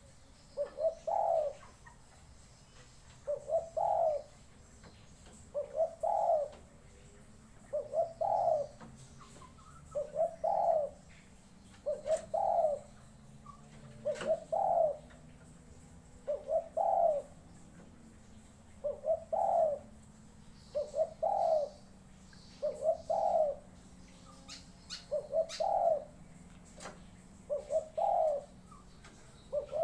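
A decoy dove cooing over and over, one short phrase of a few notes about every two seconds. This is the calling a decoy bird uses to lure wild doves.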